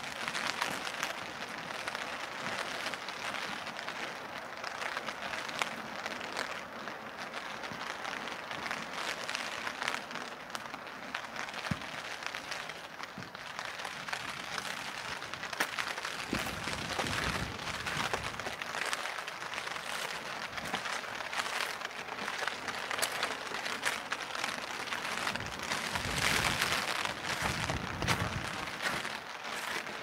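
Rain pattering on a clear plastic umbrella held overhead: a dense crackle of small drop hits over a steady hiss of rain.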